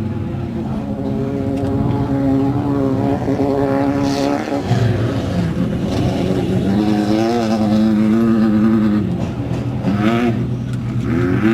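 Off-road race buggy engines running and revving, the pitch rising, holding and falling several times.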